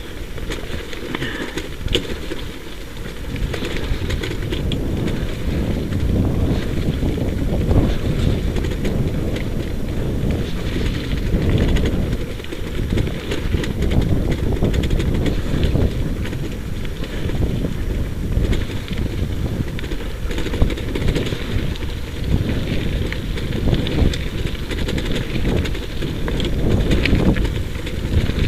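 Wheeled dog-sled rig rolling fast over a dirt track, its wheels and frame rattling without a break, with wind rumbling on the microphone.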